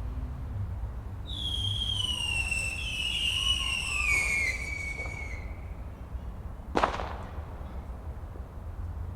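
A firework whistling for about four seconds, its pitch falling, then a single sharp bang about a second later, over a low steady rumble.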